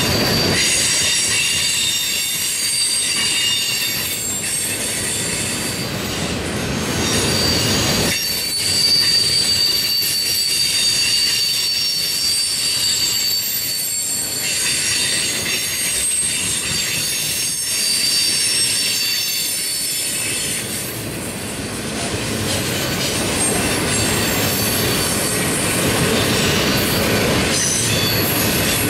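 Railroad tank cars of a freight train rolling past, their wheels squealing in several high, steady tones over the continuous rumble of the cars on the rails.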